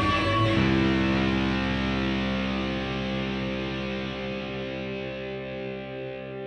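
Background music: a held guitar chord that rings on and slowly fades.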